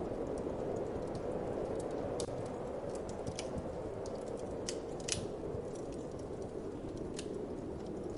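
Wood fire crackling with sharp, irregular pops, the loudest about five seconds in, over a steady low whoosh of wind.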